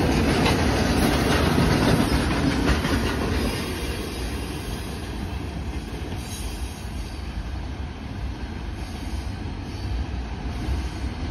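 Iron ore hopper cars of a freight train rolling past with clattering wheels, the sound dropping off about three seconds in as the last car goes by and moves away down the track.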